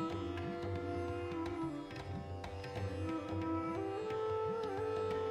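Background music in Indian raga style: a bansuri bamboo flute plays a melody of long held notes with slides between them, over plucked strings and a steady low drone.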